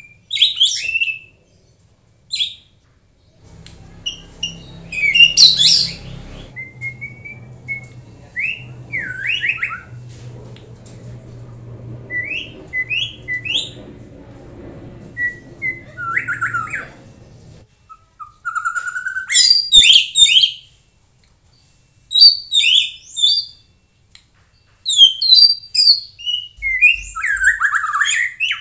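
White-rumped shama singing in short phrases of high-pitched whistles and quick chattering notes, broken by pauses of a second or two. A faint low hum runs under the song through the middle stretch.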